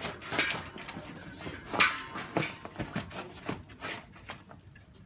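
An optical cable being handled by hand: irregular clicks, knocks and rustles as it is bent and twisted, the loudest a sharp knock about two seconds in.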